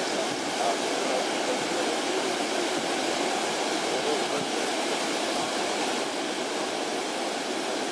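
Elbe floodwater rushing and churning as it spills over a long embankment edge into a canal: a steady, unbroken rush of water.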